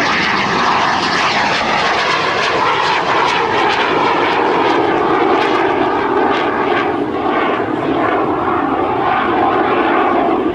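CT-114 Tutor jet trainer's single General Electric J85 turbojet engine running loudly and steadily.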